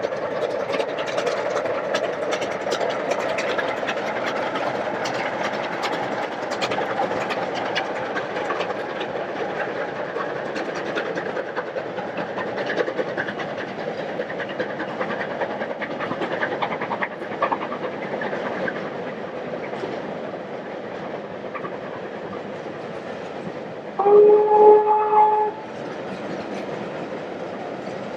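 Train hauled by Chinese QJ-class steam locomotives running, with a steady rumble and rapid clatter. About 24 seconds in, a steam whistle sounds once for about a second and a half.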